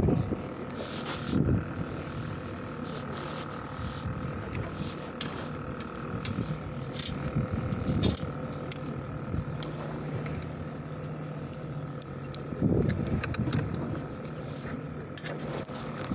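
A fishing boat's engine humming steadily, with gusts of wind buffeting the microphone about a second in and again near 13 seconds, and scattered light clicks.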